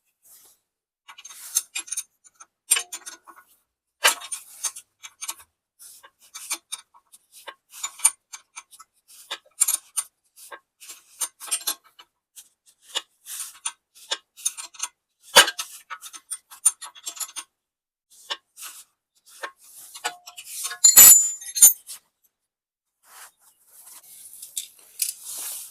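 Hand wrench work on the stump grinder's slip-clutch spring bolts (17 mm hex heads), loosening them to let the springs out: irregular metallic clicks and clinks of the tool on the bolts, with louder clanks about 15 and 21 seconds in.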